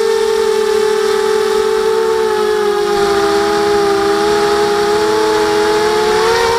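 FPV quadcopter's electric motors and propellers whining steadily, heard up close from the drone itself. The pitch splits into two close tones that dip slightly about halfway through and rise again near the end as the throttle changes.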